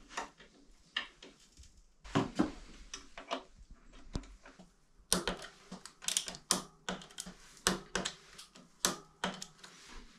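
Bicycle cockpit parts being handled and fitted by hand: irregular small clicks, taps and light knocks, a few at first and a busier run from about halfway through.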